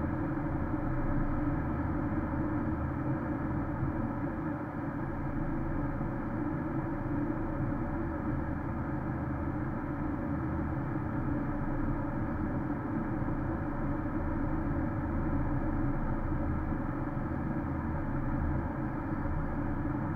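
Steady road and engine noise inside a Porsche Cayenne S driving on a snow-covered highway: a continuous low rumble with tyre noise, unchanging throughout.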